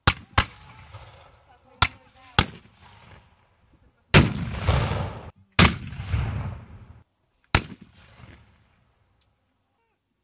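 Black-powder gunfire: four sharp flintlock musket shots in the first two and a half seconds, then two heavy cannon shots about four and five and a half seconds in, each with a long rumbling tail, and one more musket shot near eight seconds.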